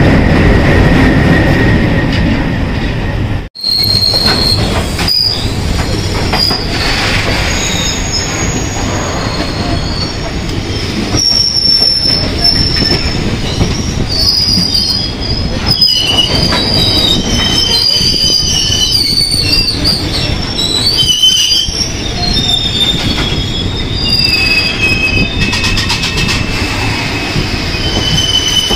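Passenger train running with a steady rumble of wheels on the rails, and from about four seconds in, repeated high-pitched squealing of wheels against the rails, several wavering tones overlapping and coming and going.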